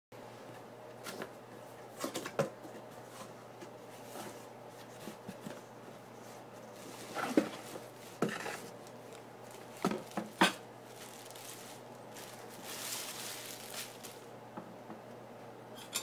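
Unboxing a stainless steel gooseneck kettle: scattered knocks and clacks of a cardboard box and the metal kettle being handled, with a stretch of rustling packaging a little before the end.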